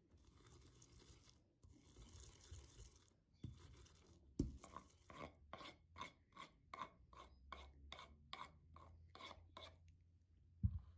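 Metal spoon scraping minced garlic off a wooden cutting board in a quick run of short strokes, about two a second, after two longer rasping rubs at the start. A single sharp knock near the end.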